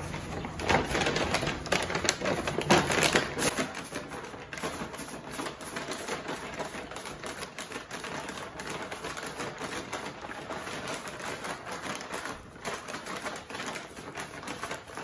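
A paper grocery bag holding flour and seasonings, crinkling and rustling as it is handled and shaken to mix the coating. There are a few louder crinkles in the first three seconds, then a steady run of quick papery crackles.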